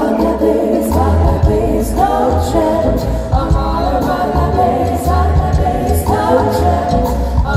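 Live band music: several voices singing together over a walking upright double bass and drums, with the strong bass notes stepping from pitch to pitch.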